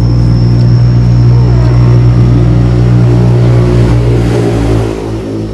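A motor vehicle's engine running close by, loud with a steady low note, then dropping away about four and a half seconds in.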